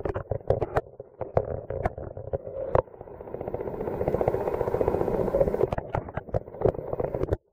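Muffled underwater noise picked up by a camera held below the surface: a steady low rushing with frequent sharp clicks and knocks. It swells from about three seconds in, then cuts off abruptly near the end.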